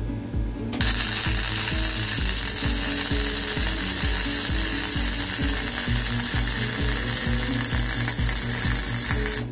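Gasless flux-core MIG welder arc crackling steadily as a bead is laid on steel. It starts about a second in and cuts off at the end. Background music with a steady beat plays underneath.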